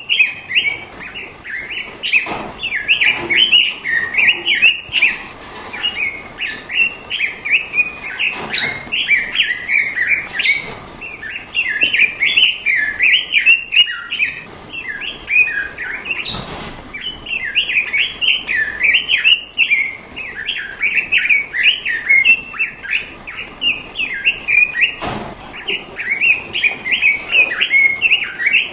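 Songbird singing a fast, unbroken run of high chirping and warbling phrases, a masteran recording used to train cage birds to sing. A few sharp knocks cut in at intervals.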